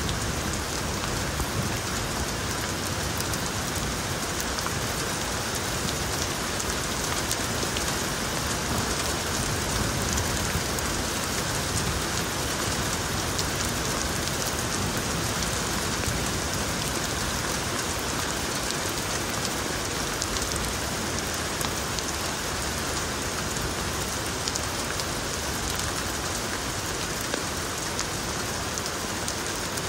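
Rain falling steadily, an even hiss that holds without a break.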